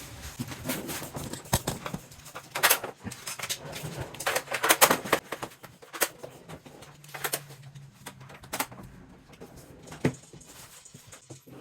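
Irregular clicks and knocks of cabinet panels and parts being handled and fitted, densest in the first half, with a faint low hum about seven seconds in.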